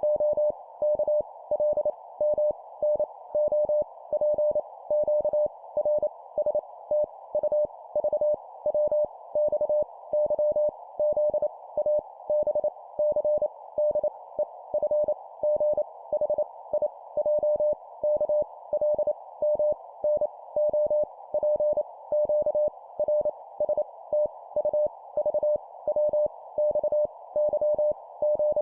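Morse code (CW) sent at 25 words per minute: a single steady mid-pitched beep keyed rapidly on and off in dots and dashes, spelling out letters, over a constant narrow band of hiss like a receiver's filtered noise.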